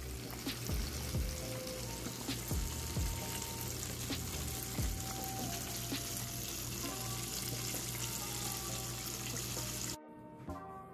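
Breaded Cornish hen deep-frying in a pan of hot oil: a steady sizzle with small crackles, over background music. The sizzle cuts off suddenly near the end.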